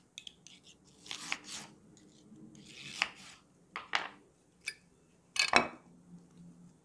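Kitchen knife slicing through an onion held on a stainless-steel prong onion holder on a wooden cutting board: several short, crisp scraping cuts, with a louder scrape a little after five seconds as the sliced onion and tools are handled.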